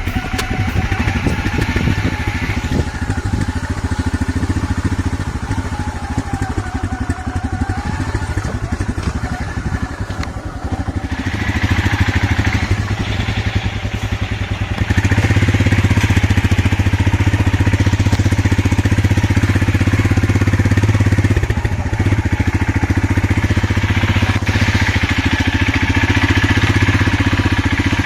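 Single-cylinder motorcycle engine running under way, steady at first and then pulling louder about halfway through.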